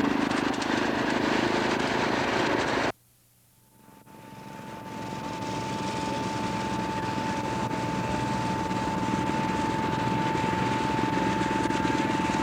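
Steady mechanical droning that cuts out abruptly about three seconds in, then fades back in over a couple of seconds with a steady high whine running under it.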